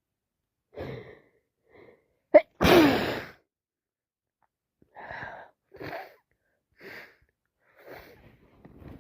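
A person with a congested head cold sneezes once, loudly, about two and a half seconds in, after a couple of short in-breaths. Then come a run of short breathy sniffs, about one a second.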